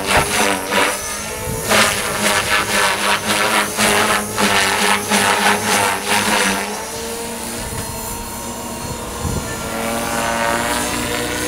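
Electric Align T-Rex 450 DFC RC helicopter in flight, its rotor blades and motor whining. For about the first two thirds the sound is choppy and pulsing. Then it settles into a steadier whine whose pitch rises and falls near the end as the helicopter manoeuvres.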